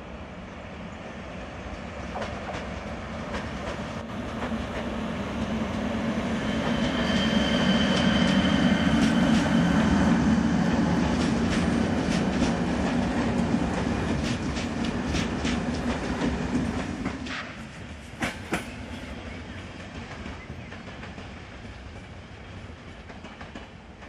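Czech Railways class 380 electric locomotive and its passenger coaches passing: the rumble of wheels on rails builds to a peak with a steady high tone, then a run of rhythmic clacks as the coaches roll over rail joints. The sound falls away suddenly about two-thirds of the way through as the last coach goes by, leaving a lower rumble.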